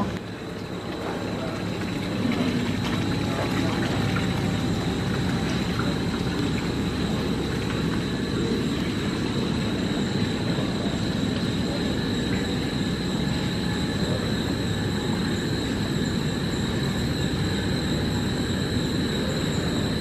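Steady mechanical drone of running machinery, a constant hum and hiss with a thin, high, unchanging whine over it.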